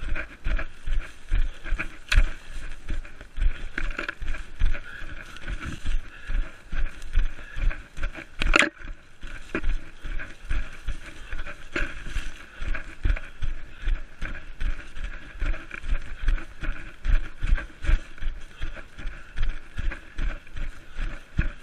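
A runner's footfalls through forest undergrowth, about three steps a second, thudding through a body-worn action camera, with a steady rustle of brushing vegetation. One louder scrape comes a little before halfway.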